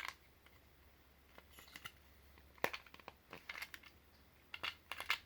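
Small plastic parts of a PS4 controller being handled and fitted into place: a scattered run of faint clicks and taps, the sharpest about two and a half seconds in.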